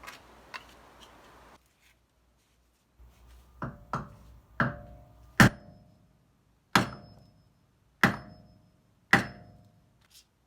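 Hammer blows on a block of wood held against the end of a front drive axle, knocking the axle shaft loose from the wheel hub where it is stuck. About seven sharp blows, some half a second apart and some over a second apart, each with a brief metallic ring.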